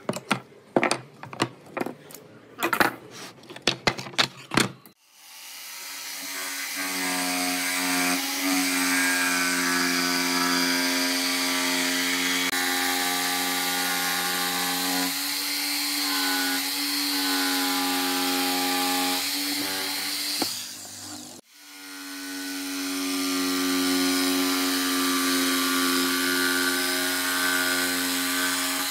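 A hammer knocks at a nail in wooden boards, a quick run of sharp strikes over the first few seconds. About five seconds in, a corded electric jigsaw starts cutting a wooden board along a curve and runs steadily. It stops briefly about three-quarters of the way through and then starts cutting again.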